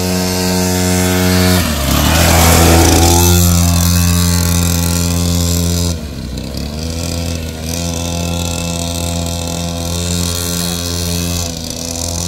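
Small 50cc two-stroke engine of a mini dirt bike running as it is ridden, a steady engine note. About two seconds in its pitch shifts and it gets louder, and about six seconds in it drops in level.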